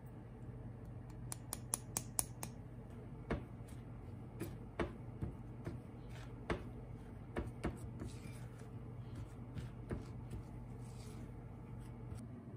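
Spatula stirring dry rice-flour mix in a glass bowl: soft scraping with scattered light clicks and knocks against the glass, a quick run of ticks about a second in, over a low steady hum.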